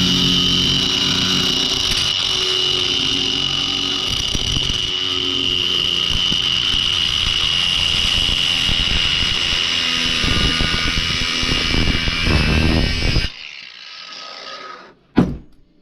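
High-speed power tool running steadily with a constant high whine as it cuts a stripped bolt in half. It cuts off about 13 seconds in, followed by a quieter stretch and one sharp click near the end.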